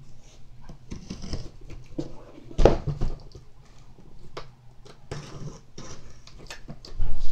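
Handling noises: scattered rustles and clicks, with a loud knock about two and a half seconds in and another near the end.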